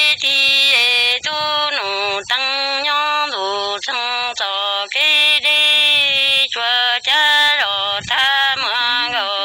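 Hmong kwv txhiaj (chanted sung poetry): one unaccompanied voice singing long held notes that step down and bend in pitch at phrase ends, with short breaks for breath between phrases.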